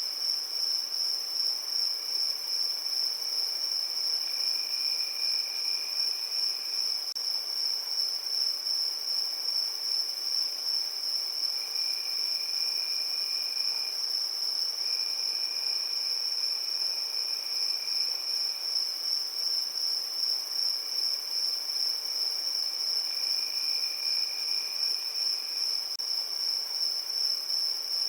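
Crickets chirping in a steady evening chorus: one continuous high, fast-pulsing trill, with a lower-pitched cricket call joining in for stretches of a few seconds at a time.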